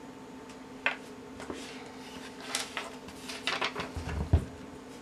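Light clicks and taps of a paintbrush against a small plastic paint cup, and objects being handled on a tabletop. A louder knock comes near the end as the test shoe is picked up. A steady low hum runs underneath.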